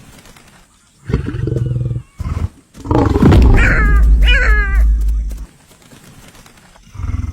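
Lion growling and snarling: a growl about a second in, a short one just after, then a louder, longer snarl with falling, rasping tones from about three to five seconds, and a short growl near the end.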